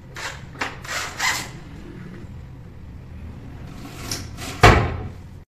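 Carpentry handling noise at a kitchen cabinet: a few short scrapes and knocks as a frame is worked on and fitted into the cabinet opening. There is one loud thump near the end, over a low steady hum.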